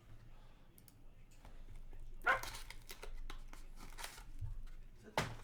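Rustling and crinkling of trading-card pack wrappers and cards being handled, with a sharp, louder sound a little over two seconds in and another near the end.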